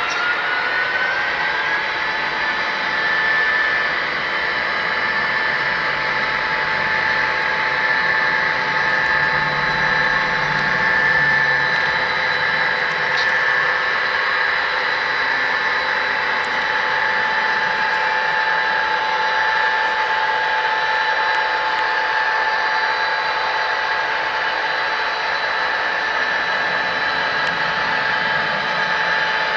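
Model train running along its track: a steady whine from the locomotive with the continuous rolling of the cars' wheels on the rails.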